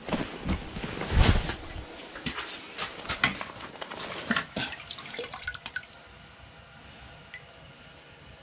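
A hand dipping into a bucket of live minnows: water splashing and dripping in short sloshes and clicks, strongest about a second in, dying away about six seconds in.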